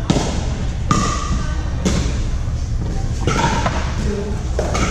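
Pickleball paddles striking a hollow plastic ball in a fast rally: five sharp pocks about a second apart, each with a short ring. The pocks echo in a large hall over a steady low rumble.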